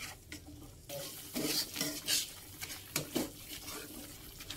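Spatula stirring and scraping thick chilli spice paste around a metal wok: irregular scrapes and light knocks against the pan as the ground paste is sautéed until cooked through.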